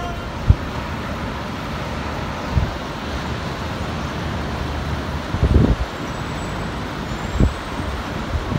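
Steady distant hiss of city traffic and breaking surf, with four low thumps, the loudest a little past halfway.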